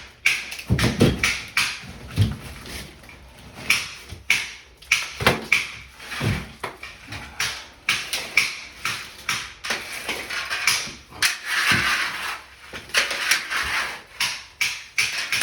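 A blade cutting through drywall: repeated short, scraping strokes, a few a second, as the sheetrock is scored and cut open for the repair.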